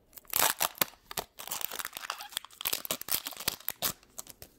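A Pokémon Burning Shadows booster pack's foil wrapper being torn open and crinkled: a fast, dense run of crackles and rips lasting about four seconds.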